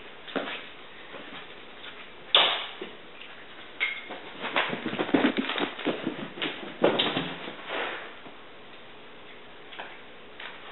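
A Bengal cat pouncing and scrabbling after a toy mouse on a cat fisher wand toy that is dragged across the floor. A sharp knock comes about two seconds in, then a flurry of quick taps and thumps for several seconds, and a few faint taps near the end.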